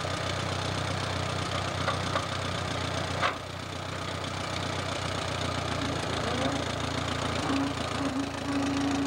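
1936 Allis-Chalmers tractor's four-cylinder engine idling steadily. One sharp knock comes about three seconds in, and a steady higher tone joins the engine near the end.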